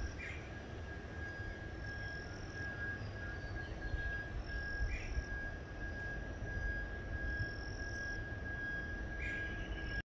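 Swamp wildlife chorus: a steady high, even drone, with short higher buzzes repeating every second or two and a brief call about every four to five seconds, over a low rumble.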